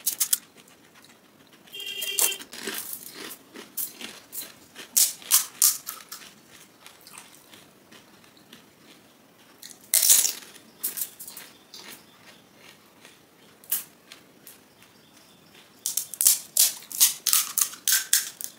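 Crisp, hollow panipuri (golgappa) shells crackling and crunching as they are poked open and bitten. A loud crunch comes about ten seconds in, and a quick run of crackles comes near the end.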